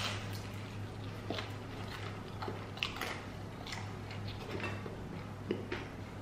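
Close-up crunching of a deep-fried vegetable egg roll being bitten and chewed. A crisp bite comes at the start, then scattered crackles of the fried wrapper as it is chewed, with a louder crunch about three seconds in.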